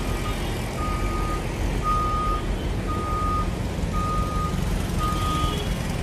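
Warning beeper of a road-rail shunting vehicle giving a single high beep about once a second, six times, over the low rumble of its engine as it moves a metro train along the track.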